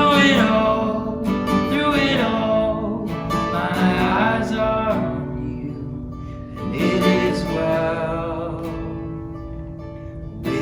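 Acoustic guitar strumming chords, with a strong strum about every two seconds and the chords ringing out and fading between them.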